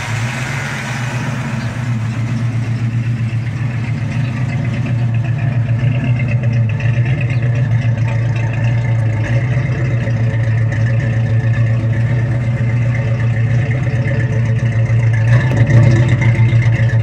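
Carbureted 302 cubic-inch (5.0 L) small-block Ford V8 idling steadily, heard at its exhaust tailpipe in the second half and getting louder toward the end.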